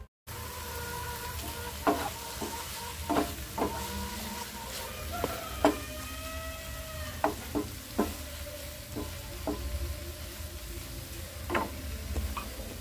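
Sliced tomatoes and onions sizzling steadily in a nonstick frying pan while a wooden spatula stirs them, knocking and scraping sharply against the pan many times.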